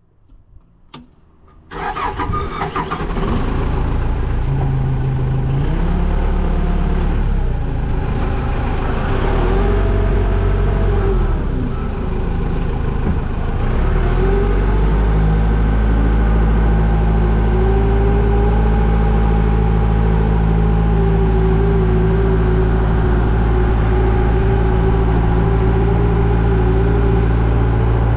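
Old forklift engine started: a few clicks, then it catches about two seconds in. It runs with its pitch rising and falling for a dozen seconds, then settles to a steady idle about halfway through.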